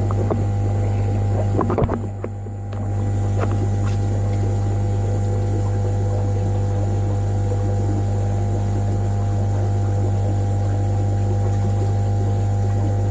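Steady low electrical hum from fish-room equipment, with a few faint clicks near the start. The hum dips briefly about two seconds in.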